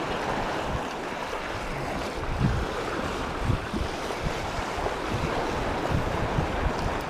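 Sea waves washing onto the shore, with wind noise on the microphone in irregular low gusts.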